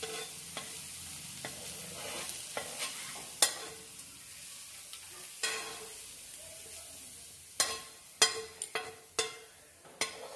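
Metal spatula scraping sautéed onion and green chilli across a hot tava and into a steel plate, in sharp separate strokes that come closer together in the last few seconds, with a steady sizzle from the pan underneath.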